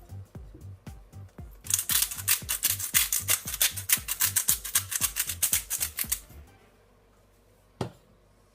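Background music with a steady beat. From about two seconds in, a rapid run of sharp clicking from kitchen utensils lasts about four seconds. It then drops low, with one more click near the end.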